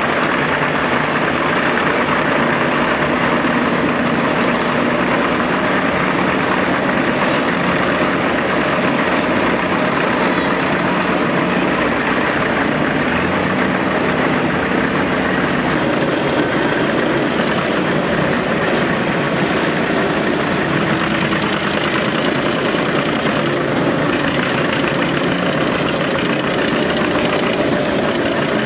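Antique John Deere two-cylinder tractor engine running steadily under load as it drags a sled of stone blocks.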